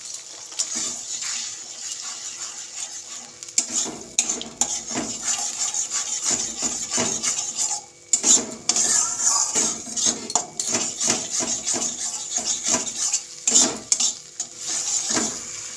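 Metal spatula scraping and knocking against a metal kadai as beaten eggs are stirred and broken up into scrambled egg, over the steady sizzle of the eggs frying in oil. The scraping strokes start about three and a half seconds in.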